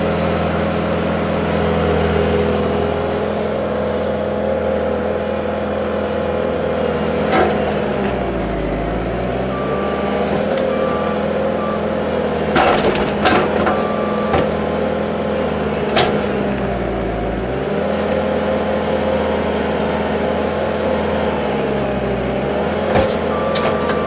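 Bobcat T770 compact track loader's diesel engine running at high revs, its pitch sagging twice as it takes load while the grapple works brush and logs. Sharp knocks of wood and steel are heard now and then, and a backup alarm beeps in short runs.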